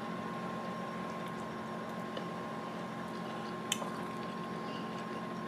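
Quiet eating sounds over a steady faint hum, with one light clink of a metal fork against the plate a little after three and a half seconds in.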